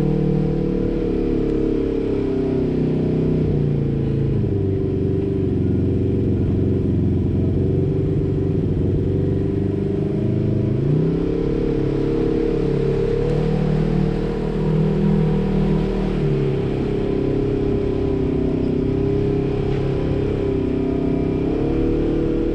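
Polaris RZR side-by-side's engine running under throttle as it drives a dirt trail, the engine note rising and falling as the driver eases on and off the gas, a little louder about two-thirds of the way through.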